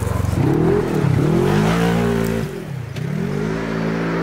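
Side-by-side UTV engine revving hard while the machine spins on loose gravel, its pitch climbing and dropping back twice, then rising again and holding high.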